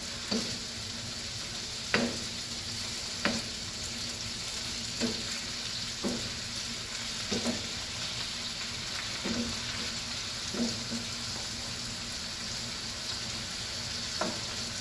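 Chicken breast pieces sizzling steadily in a nonstick frying pan, in a little oil and their own juices, while a wooden spatula stirs them and knocks against the pan every second or two.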